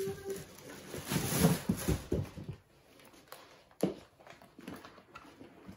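Paper and packaging rustling as a pair of boots is pulled out of a cardboard box, loudest in the first couple of seconds. After that come a few soft knocks and taps as the boots are handled.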